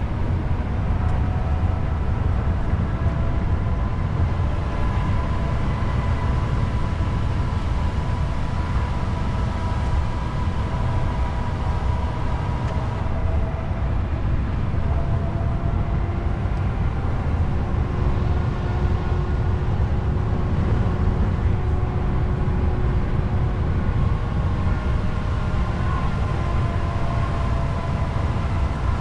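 Truck on the move: a steady diesel engine drone and road rumble, with faint whining tones that slowly drift up and down in pitch.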